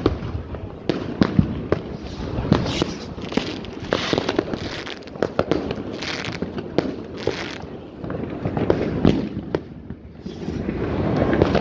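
New Year's Eve fireworks going off all around, with sharp bangs coming irregularly, often several a second, over a continuous background of more distant bangs and crackle. The noise swells louder near the end.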